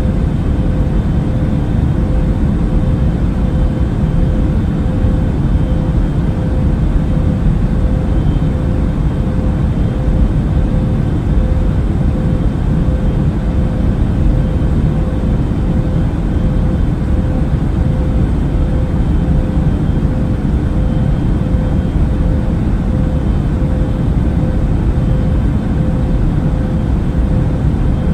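Airliner cabin noise in flight: a steady low rushing drone of jet engines and airflow, with a faint hum over it.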